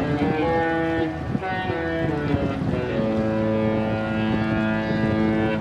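Disney cruise ship's musical horn playing a tune: a few short notes stepping in pitch, then a long held note over the second half that cuts off sharply. Wind noise runs underneath.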